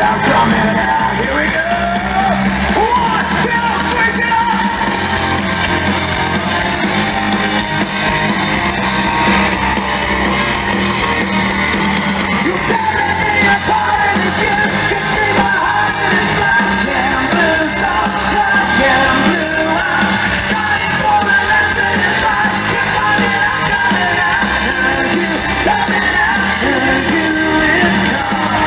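Hard rock band playing live in a large hall: electric guitar, bass guitar and drums, with vocals.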